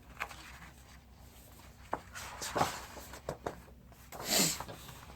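Quiet room with a few small clicks and one short paper rustle about four seconds in, like a picture book's page being turned.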